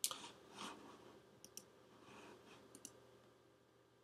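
Faint clicking at a computer: one sharper click at the start, then two pairs of quick, light clicks about a second and a half and nearly three seconds in.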